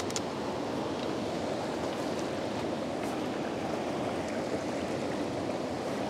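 River water flowing steadily, a constant rushing around the angler standing in the current, with a couple of light clicks at the very start.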